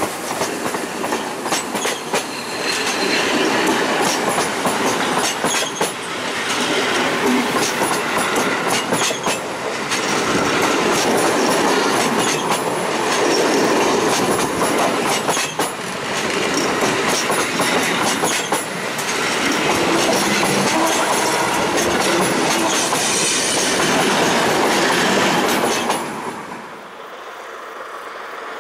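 Passing train hauled by steam locomotive 477.043, its wheels clacking rapidly over the rail joints, the noise swelling and easing every few seconds. The noise drops away suddenly a couple of seconds before the end as the train goes by.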